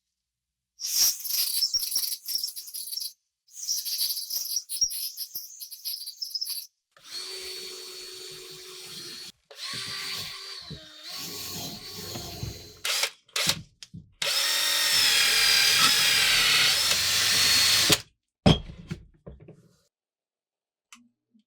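Electric drill running in a series of short, cut-together bursts, grinding against rusty metal. Its whine wavers in pitch as the load changes, and it is loudest in a long final burst.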